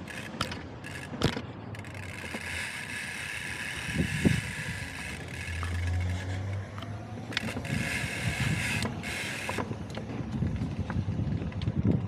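BMX bike being ridden: the rear freewheel hub buzzes steadily while coasting, cutting out briefly a few times, over tyre rumble and a few sharp knocks.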